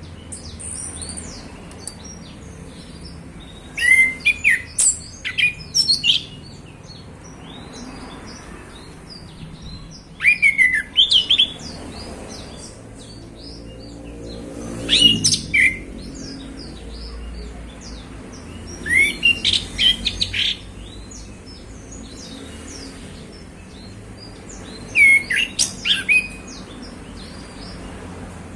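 Male chestnut-capped thrush (anis kembang) singing: five short, loud bursts of varied whistled and chattering notes, about one every five seconds, over fainter high chirping.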